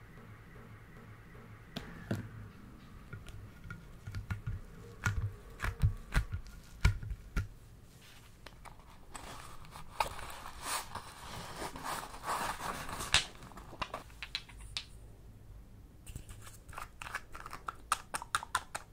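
Hands handling small objects over a clear plastic tray: scattered taps and clicks with a few soft thuds, a few seconds of rustling in the middle, and a quick run of small clicks near the end as a nail polish bottle is handled.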